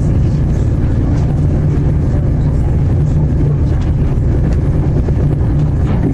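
Interior noise of a Class 221 Super Voyager diesel-electric train under way: the underfloor Cummins diesel engine's steady low drone over the rumble of wheels on rail.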